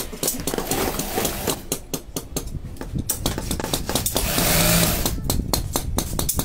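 Industrial sewing machine running in short bursts amid many sharp clicks and knocks, with its longest run about four seconds in.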